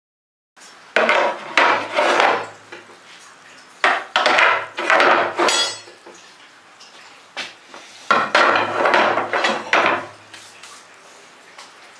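Pieces of scrap iron clattering and scraping against each other in three bouts of a second or two each, the first about a second in, the others about four and eight seconds in.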